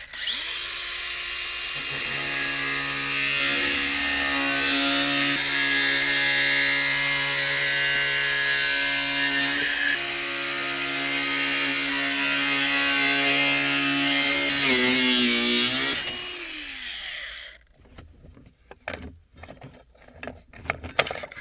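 Hand-held angle grinder spinning up and cutting into a metal pipe, with a steady high whine and grinding hiss. About sixteen seconds in it is switched off and winds down, its pitch falling until it stops.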